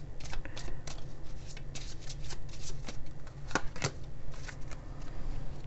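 A deck of oracle cards shuffled by hand: a quick run of soft card clicks and flicks, with a couple of sharper taps a little past halfway.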